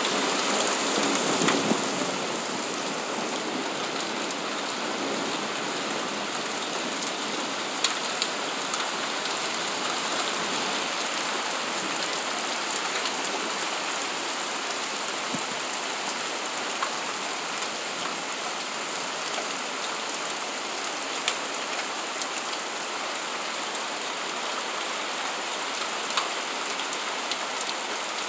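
Steady heavy rain of a thunderstorm falling on leaves and surfaces, with the last of a thunder rumble fading away in the first couple of seconds. A few sharp ticks of drops striking something close stand out now and then.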